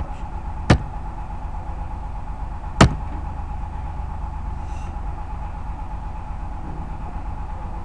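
Two sharp clicks at the computer about two seconds apart, the second louder, over a steady low background hum.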